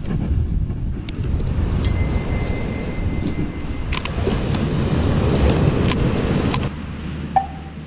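Wind buffeting the microphone over the sound of surf, easing near the end. Sharp clicks from handling a plastic bait box and bottle, one of them about two seconds in followed by a high ringing tone that lasts about two seconds.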